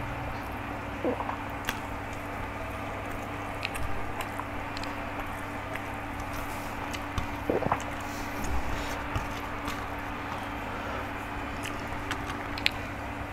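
Eating sounds: fingers working fried rice on a steel plate and chewing, as small scattered clicks and soft squishes over a steady low hum.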